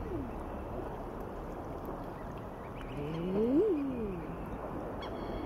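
Low moaning animal calls, each rising and then falling in pitch over about a second, one right at the start and a louder one about three seconds in, over a steady background hiss.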